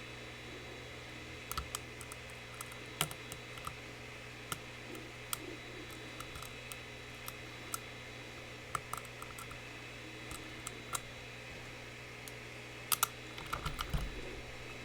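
Small, irregular clicks and taps of lock picks working in a Mul-T-Lock Classic Pro cylinder, with a quick cluster of clicks near the end, over a steady background hum.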